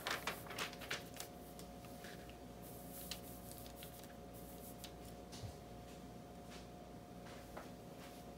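Clear plastic hotfix tape being rubbed and pressed down by hand over rhinestones, with crinkly rustles and small clicks in the first second and a half, then only a few scattered faint ticks over a steady faint hum.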